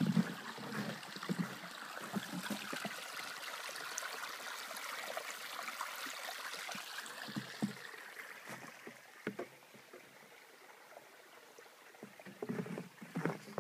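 Small woodland stream running and trickling, louder for the first eight seconds or so and then fading. Footsteps in snow at the start and again near the end.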